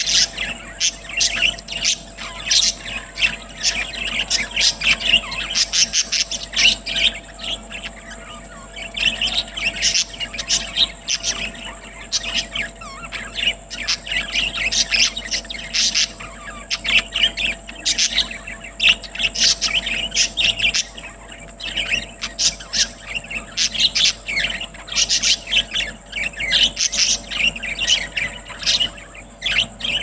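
A flock of budgerigars chattering and chirping, a continuous overlapping stream of short, high warbling calls.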